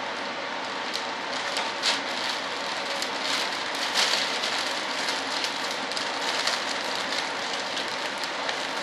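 Plastic vacuum-bagging film crinkling and crackling in many small irregular pops as hands press and smooth it down over a resin layup. Under it runs a steady background hiss.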